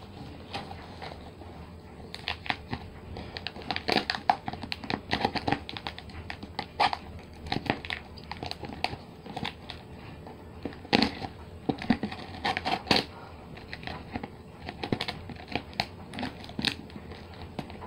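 A shipping package being opened by hand: irregular crinkling, rustling and tearing of packaging.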